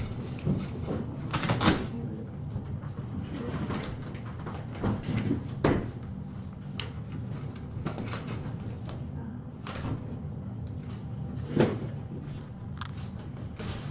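Scattered knocks and clunks close to the microphone as kittens bump and nose at the webcam, with three louder thumps among them, over a steady low hum.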